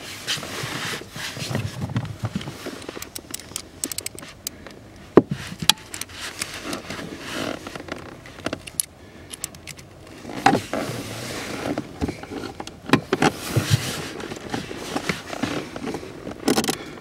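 Plastic fuse box and trim panel being handled and fitted into place: scraping and rustling, with sharp clicks and knocks of plastic parts at irregular intervals.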